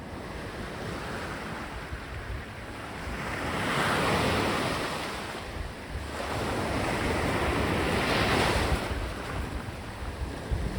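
Sea waves breaking and washing up the beach, the surf swelling twice, about four seconds apart, then falling back. Wind buffets the microphone with a low rumble.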